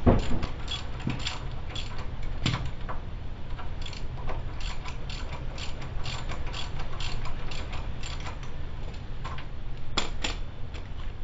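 Hand socket ratchet clicking in quick runs while backing out the front wheel hub's mounting bolts, with a few sharper metal clacks of the tool on the hub.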